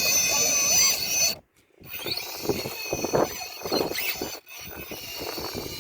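RC rock crawler's brushless motor whining, with high steady tones whose pitch wavers as the throttle changes, and tyres and chassis scraping over rock. The sound cuts out for about half a second near the start and dips again briefly later.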